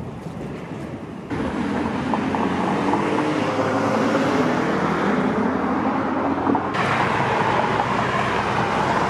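Road traffic noise, cars going by, turning suddenly louder about a second in.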